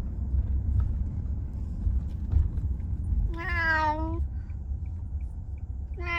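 Senior cat meowing: one long meow a little over three seconds in, dropping slightly in pitch, and another starting at the very end, over a steady low rumble.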